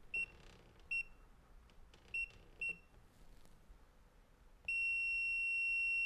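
Touchscreen keypad of a fingerprint smart door knob beeping: four short, high beeps as keys are pressed, then one long steady beep from the lock as the passcode is rejected as wrong.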